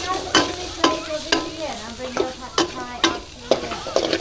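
Food stir-frying in a pan: a steady sizzle with a metal spatula scraping and knocking against the pan, in sharp strokes about every half second.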